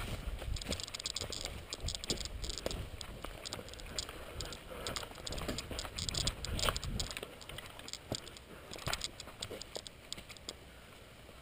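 Irregular rustling with many light clicks and rattles, like a player's gear and weapon being handled while moving, fading down after about eight seconds.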